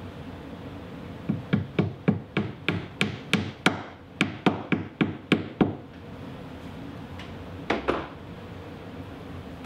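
A small mallet tapping plastic drywall anchors into drilled holes in a drywall ceiling: a quick run of about fifteen sharp taps at roughly three a second, then a pause and two more taps close together near the end.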